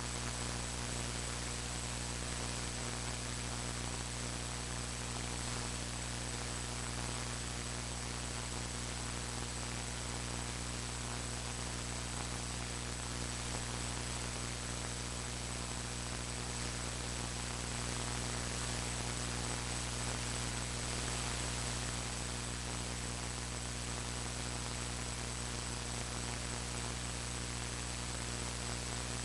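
Steady electrical mains hum and hiss that does not change throughout, the noise of a faulty audio recording.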